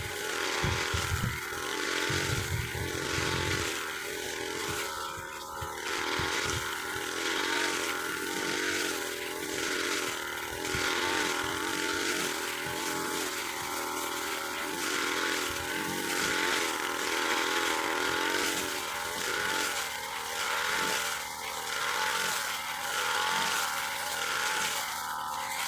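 Tiger TG328 two-stroke brush cutter running and cutting grass, its engine note rising and falling every couple of seconds as the throttle and load change.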